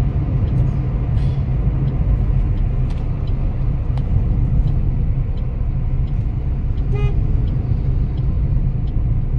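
Steady road and engine rumble inside the cabin of a moving car, with one short car-horn toot about seven seconds in.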